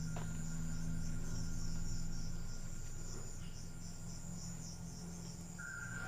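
Crickets and other insects chirping in a high, pulsing trill of about four pulses a second, with a steady thin high tone from another insect, over a low steady hum.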